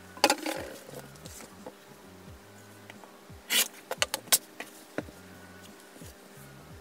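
Sharp clacks and knocks of an acrylic quilting ruler and a rotary cutter being picked up and set down on a plastic cutting mat, with fabric being moved; the clicks come in a quick cluster a little past the middle.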